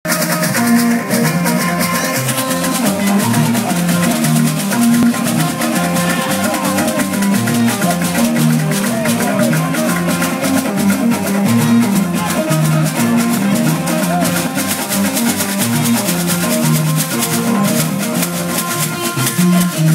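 Music: plucked strings over a bass line, with rattling percussion keeping a quick steady rhythm.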